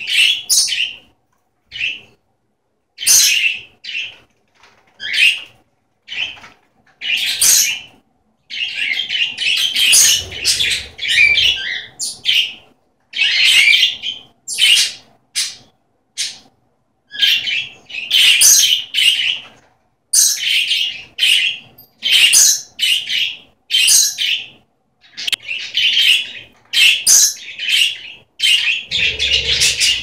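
Several pet budgerigars chattering: a fast run of short, high chirps and squawky calls, often overlapping, with brief pauses between bursts.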